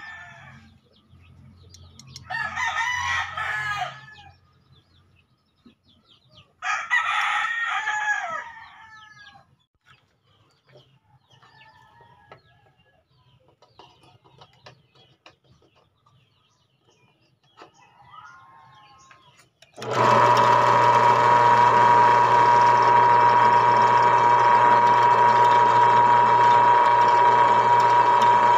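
A rooster crows twice, then about two-thirds of the way through a bench drill press switches on and runs steadily with a high, even whine as it drills a hole in a metal trigger-mechanism part.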